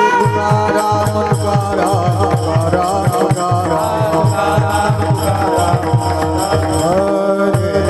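Devotional kirtan music: a pakhawaj (mridang) drum playing fast, even strokes with deep bass notes that drop in pitch, under hand cymbals (taal) and a held melody.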